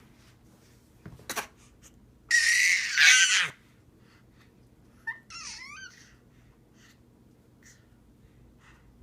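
Cat vocalizing: a loud, harsh yowl lasting about a second, then a shorter, quieter wavering meow a couple of seconds later, with a brief tap just before the first call.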